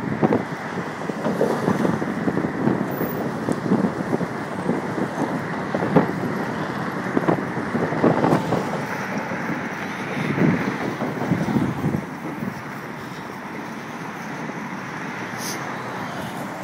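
Wind buffeting the microphone in gusts over road and traffic noise, as from moving along a street on an open vehicle; it eases somewhat about twelve seconds in.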